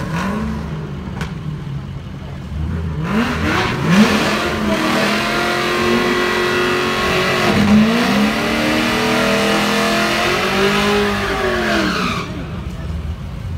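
Supercharged 6.2-litre V8 of a heavily modified 2009 Cadillac CTS-V, exhaust cutouts open, rumbling low, then revved hard again and again for about nine seconds in a burnout, the pitch sweeping up and down over a loud rush of noise, before dropping back near the end.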